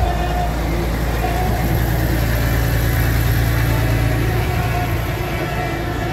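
Diesel farm tractors idling in a stopped column, a steady low engine rumble with a large tractor close by, swelling slightly around the middle.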